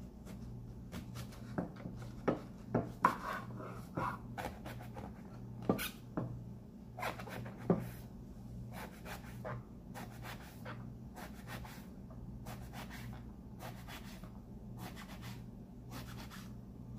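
Kitchen knife cutting long Asian eggplant on a cutting board: a string of irregular taps and clicks as the blade goes through the flesh and meets the board, louder in the first half and then fainter and more even. A steady low hum runs underneath.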